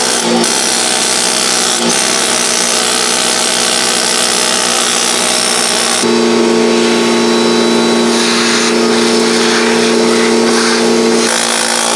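Pneumatic needle scaler running continuously against a rusty cast-iron engine block, chipping off scale and hanging rust. A steady hum joins the rattle about halfway through and stops near the end.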